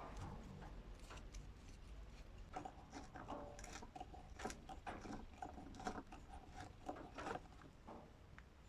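Quiet hand-tool work on a small workpiece: irregular scraping and rubbing strokes with light clicks, and a faint squeaky scrape through the middle.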